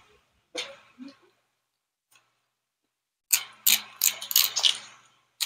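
Close-up crunching of crispy fried pig ear being chewed, a quick run of sharp crunches about four or five a second that starts about three seconds in; a few soft mouth sounds come before it.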